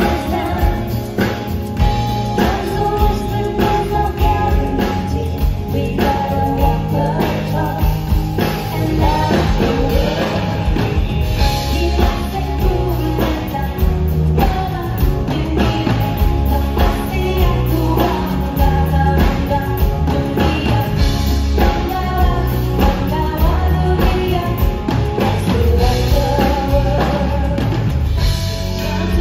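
Live band playing a soft rock song: singing over grand piano, electric guitar and drum kit, with a strong bass line.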